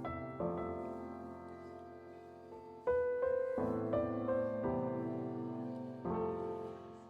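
Background music: slow piano chords, each struck and left to ring and fade, with the music dying away near the end.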